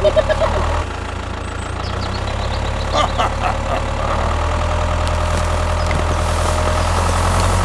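Tractor engine idling steadily, a low even hum that slowly grows louder.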